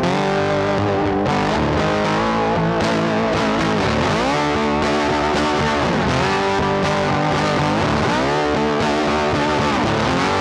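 Background instrumental music led by a distorted electric guitar, with notes that slide and bend in pitch.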